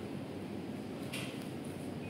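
Daikin FTNE50MV1V mini split air conditioner running, a steady low rushing noise of air and fan. A short high hiss cuts in briefly about a second in.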